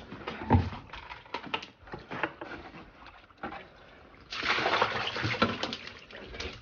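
Fish and water being handled in a bucket on a fishing boat: scattered knocks and a sharp thump, then a burst of splashing lasting about two seconds starting a little past four seconds in.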